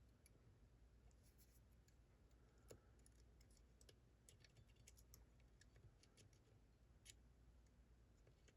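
Faint, irregular clicks of a metal probe pick tapping and setting the pins of a pump lock, over near silence.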